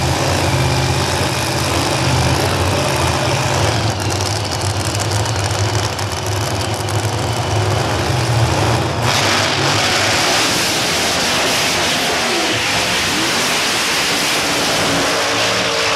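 Two drag racing cars' engines idling with a deep, steady rumble at the start line, then about nine seconds in both launch at full throttle, the sound turning abruptly into a loud broad engine noise as they run down the strip.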